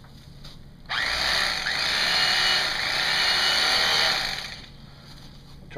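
Electric knife running as its blades saw through a thick slab of Pelican case foam, starting about a second in and stopping after about three and a half seconds.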